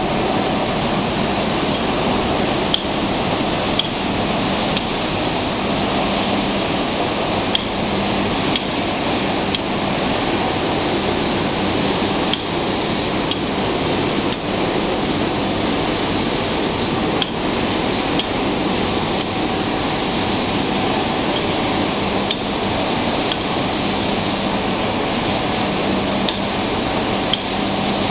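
Sharp metallic knocks, struck on steel, come in sets of three about a second apart and repeat roughly every five seconds. Underneath runs a steady din of heavy plant machinery with a low hum.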